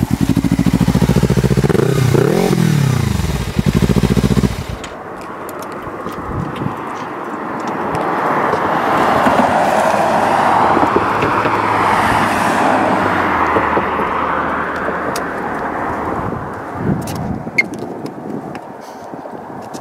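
Kawasaki Ninja 300 parallel-twin engine running loud and close, its pitch dipping and rising about two seconds in, then cutting off abruptly. A softer rushing sound then swells and fades over several seconds.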